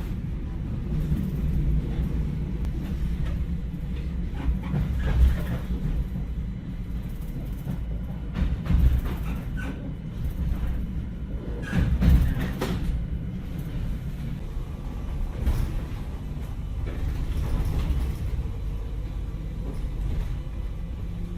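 Added sound-effect track: a steady low rumble with a few louder knocks and thuds scattered through it.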